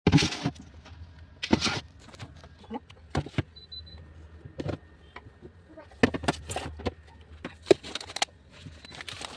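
Groceries and plastic containers being handled and set down on fridge shelves: an irregular run of clicks, knocks and rustles over a low steady hum, with a short high tone near the middle.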